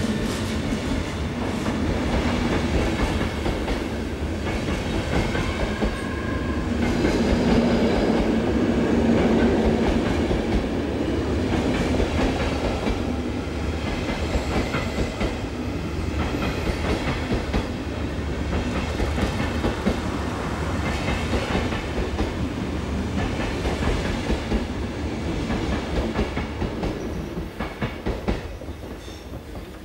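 Passenger train hauled by an electric locomotive rolling slowly past on the adjacent track: a continuous rumble of coaches going by with the clickety-clack of wheels over rail joints, and a steady low hum that swells a quarter of the way in.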